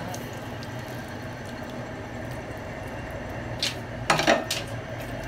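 Chicken broth poured from a stockpot onto rice in a smaller pot, a steady pouring sound, with a few sharp clanks of pots about four seconds in, the loudest sounds here.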